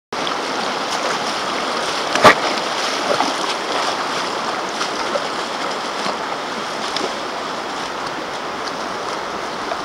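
Shallow river water rushing steadily over a rocky bed, with a single sharp knock about two seconds in.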